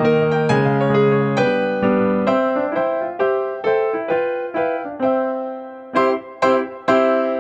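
Background music played on a piano-like keyboard: a melody of struck notes that each fade away, turning to short, separate notes about twice a second near the end.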